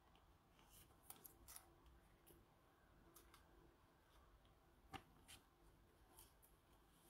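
Near silence with a handful of faint clicks and light rustles of trading cards being handled by gloved hands, the sharpest click about five seconds in.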